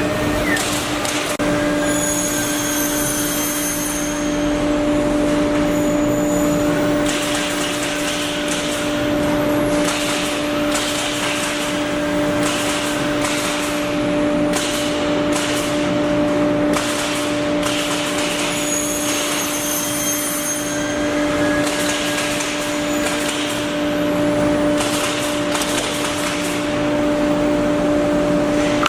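Woodworking CNC router running: a steady hum from the spindle, with bursts of rough cutting noise and knocks from the bit working wood, and a few brief higher whines.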